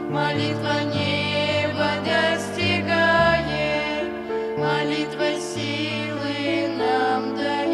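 Christian hymn music: voices singing a slow melody over held chords, with a bass line that steps from note to note.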